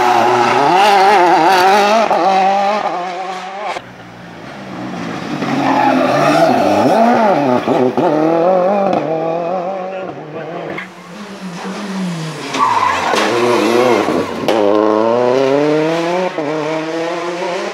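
Rally cars coming through a hairpin one after another, three passes. Each engine note rises and falls as the car brakes, turns and accelerates away through the gears.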